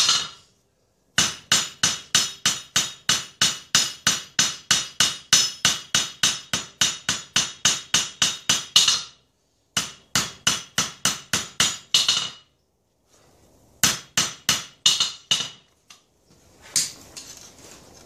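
Hand hammer striking a red-hot blade forged from chainsaw chain on a steel anvil while drawing out its bevels: steady blows about three or four a second, each with a bright ring, in three runs broken by short pauses, then a few lighter, uneven knocks near the end.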